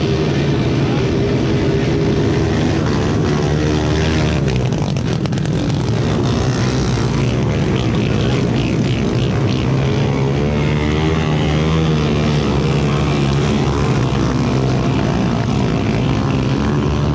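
A pack of Honda XRM single-cylinder four-stroke motorcycles running together and revving hard, their pitch rising and falling as the riders work the throttles with rear wheels spinning in deep mud.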